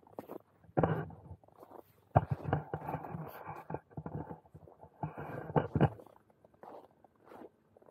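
Handling noise from a 360° camera rubbing and bumping against a padded winter jacket: a short burst about a second in, then a longer stretch of rustling from about two seconds to six seconds.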